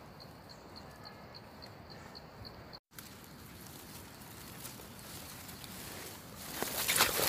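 Faint outdoor ambience with a small regular chirp about three times a second, broken by a short dropout about three seconds in. Near the end, louder rustling and crackling of leaves and twigs as hands push through the undergrowth.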